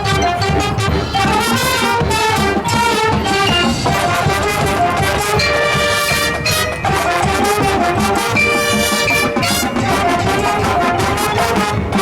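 A high school marching band playing its field show: brass (trumpets and trombones) over the drum line, with a few long held chords.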